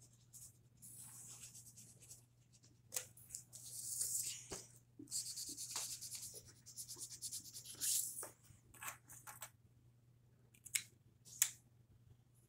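Felt-tip marker scribbling on paper while colouring in, in runs of quick scratchy strokes. A few light clicks follow near the end.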